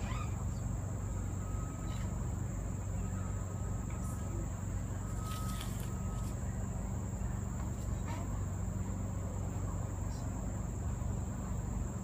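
Steady high-pitched drone of forest insects over a constant low hum. A faint thin whistle comes and goes in the first half, and short scratchy rustles about five seconds in come from a monitor lizard digging in the soil and leaf litter with a forefoot.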